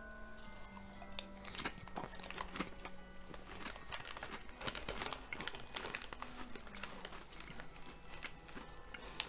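Crunchy crinkle-cut potato chips being chewed: many short, quiet crackles and crinkling clicks, over faint background music with held notes.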